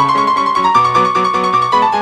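Background piano music: a lively melody of quick separate notes over a steady, regular bass line.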